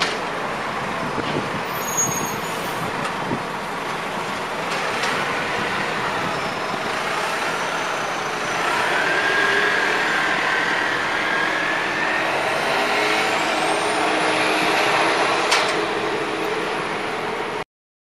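City transit bus pulling away and driving off, its engine running over steady street traffic noise, with a whining tone that slides in pitch for a few seconds midway. The sound cuts off suddenly about a second before the end.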